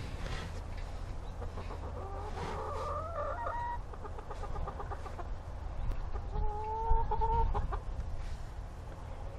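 Domestic hens calling from the coop: a drawn-out call, slightly rising in pitch, about two seconds in, and a second, steadier call around six to seven seconds in.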